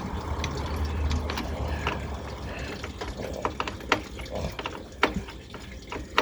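Scattered metal clicks and knocks from hand tools working the radiator's line fittings and clamps, over a trickle of liquid from the loosened lines, with a low rumble in the first couple of seconds.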